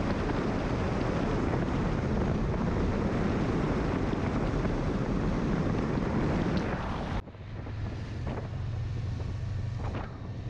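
Heavy wind buffeting the microphone of a camera on a moving motorcycle. About seven seconds in the sound cuts abruptly to a quieter stretch where the Honda Transalp 700's V-twin engine is heard running steadily under lighter wind.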